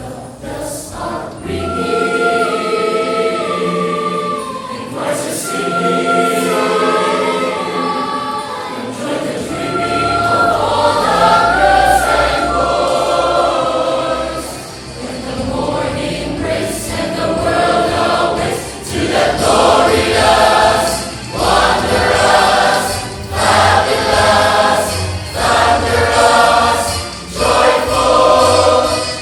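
Choir singing a Christmas cantata song: long held chords in the first half, then short chords sung in a regular driving pulse from a little past halfway.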